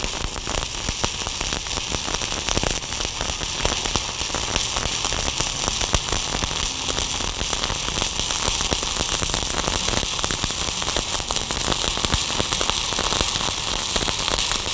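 Stick (SMAW) welding arc from a 1/8-inch E7018 electrode at 135 amps on half-inch steel plate, crackling and sizzling steadily as a fill bead is run.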